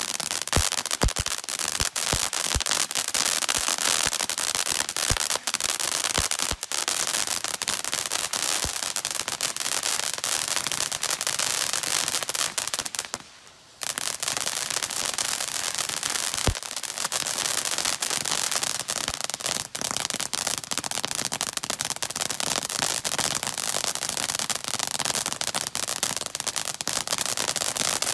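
Shogun Popcorn crackle fountain firework burning: a loud, continuous hiss of spraying sparks with a dense, rapid crackle of many small pops. A few sharper pops stand out in the first seconds, the output dips for a moment about halfway through, and one louder pop follows soon after.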